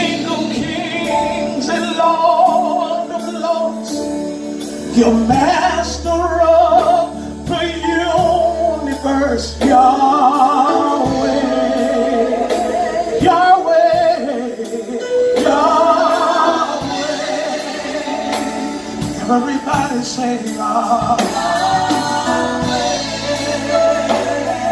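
Live gospel music: singing over a band of electric bass guitar, keyboard and drum kit, with regular cymbal ticks.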